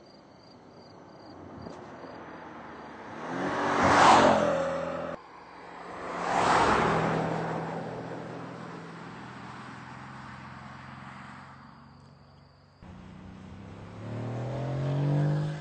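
Mercedes-Benz C63 AMG Estate's V8 sweeping past at speed twice, each pass swelling to a peak and fading away. Near the end the engine accelerates hard, its pitch climbing.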